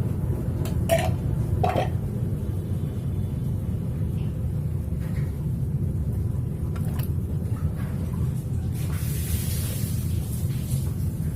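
A metal utensil clinks twice against a pan, then scrapes, over a steady low rumble. A brief hiss comes near the end, likely from the satay seasoning being stirred and dry-roasted in the pan.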